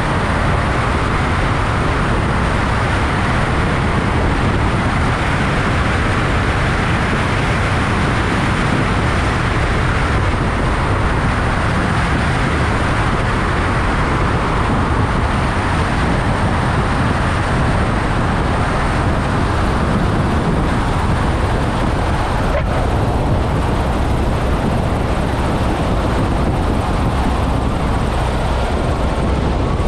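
Cessna 172 engine and propeller droning steadily in flight, heard through heavy wind rushing over a microphone mounted outside the aircraft.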